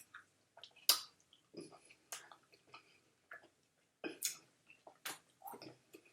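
A person eating at the microphone, with wet mouth smacks and clicks at irregular intervals, a few louder ones among them.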